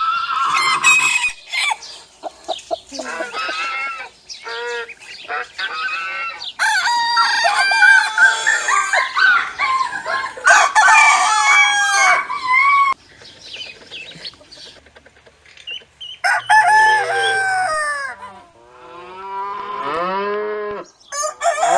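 Chickens clucking and roosters crowing, a run of separate calls with a dense stretch of many overlapping calls in the middle.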